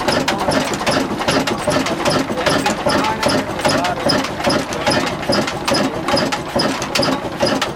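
Stationary engine running a belt-driven chakki stone flour mill, with a rapid, even knocking.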